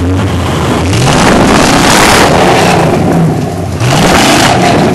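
Rock crawler's engine revving as it climbs a rocky ledge, the pitch rising twice, about a second in and again near the end.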